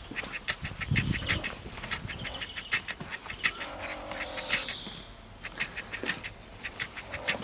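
A young marten chattering: a rapid, harsh series of clicking calls in irregular runs, with a few higher squealing notes mixed in.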